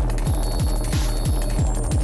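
Electronic music track with a steady, pounding bass kick, about four low thumps a second, each falling in pitch, under sustained high electronic tones.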